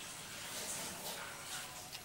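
Faint sounds of glitter-filled slime being stirred with a spoon in a glass bowl.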